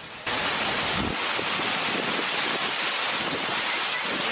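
Water rushing steadily down a small rocky waterfall, a constant hiss-like roar that cuts in abruptly just after the start.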